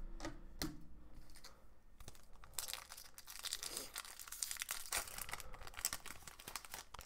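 A hockey card pack's wrapper being torn open and crinkled by hand, a dense crackling from about two and a half seconds in. Before that come a few light clicks.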